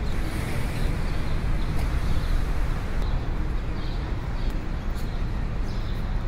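Steady, muffled street traffic noise picked up by a body-worn camera's microphone, with a few faint clicks as a wallet and documents are handled close to it.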